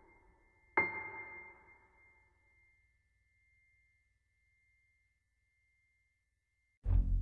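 Background music: a single piano note struck about a second in, ringing and slowly fading away. Near silence follows, then a deep low note strikes just before the end.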